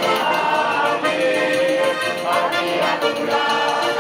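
Button accordion playing a lively tune while a crowd of voices sings along.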